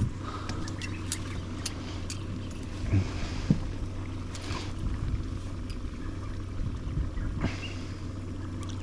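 Boat's outboard motor running steadily at idle, with scattered clicks and a couple of knocks from gear being handled in the boat.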